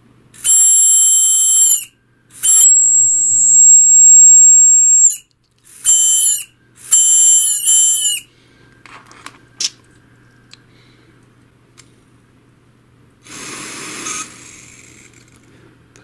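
Small 12-volt robot-vacuum fan motor squealing loudly with a piercing high-pitched whine each time it is powered, in four bursts that start and stop abruptly over the first eight seconds. The squeal is the sign of a dry, unlubricated motor shaft bearing. A shorter, rougher noise comes near the end.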